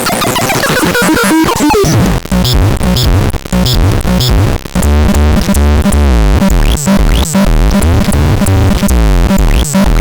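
ADEPAX synthesizer playing electronic sounds: pitched sweeps at first, then from about two seconds in a fast-stepping, repeating bass line with sharp percussive clicks.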